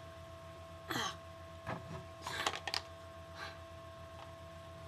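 Handling noise of a toy being picked up and brought close to the microphone: a few scattered rustles and knocks, with a cluster of sharp clicks about two and a half seconds in. Under them runs a steady electrical hum.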